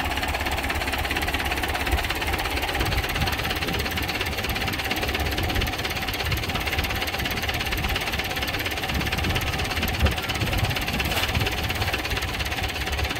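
Tractor engine idling steadily with a low, even rumble. A single sharp knock sounds about ten seconds in.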